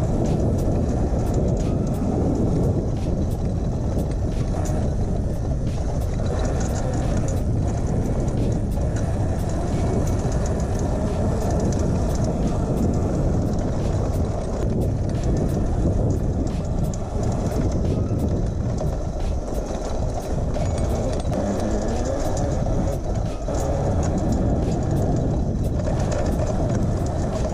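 Electric pit bike ridden across bumpy grass: a steady rumble of wind on the microphone, with many small clicks and rattles from the bike's chain and frame. There is no engine note.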